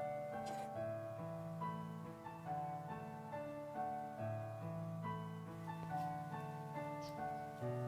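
Background piano music, slow held notes changing about once a second.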